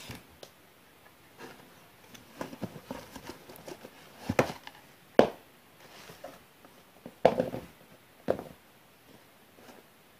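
Handling noise from a cardboard shoe box and the sneakers inside it: the lid comes off, and shoes are lifted out and set down, giving scattered knocks and rustles. The loudest knock comes about halfway through, with another sharp one a couple of seconds later.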